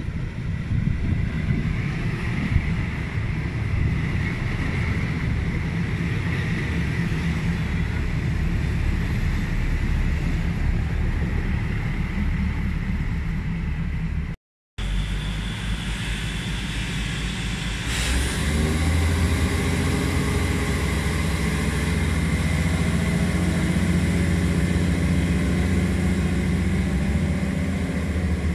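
Diesel train engines running: first the steady drone of a diesel railcar passing, then, after a short break, a diesel locomotive's engine that grows louder and rises in pitch from about the middle of the second half, with a single sharp click as it starts.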